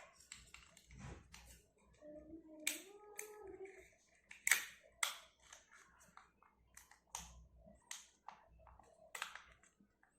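Scattered sharp clicks and taps of small plastic and metal charger parts being handled and pressed into place, with a short pitched hum about two seconds in.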